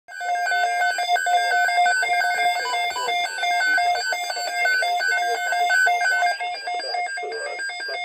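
Midland WR100 weather radio sounding its alert alarm, a rapid repeating pattern of electronic beeps, signalling an incoming Severe Thunderstorm Watch. The beep pattern changes about six seconds in.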